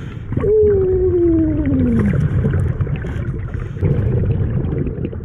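A scuba diver's muffled voice underwater through the regulator: one long falling 'oooh', starting about half a second in and sliding down in pitch for about a second and a half. It sits over a steady low rumbling noise.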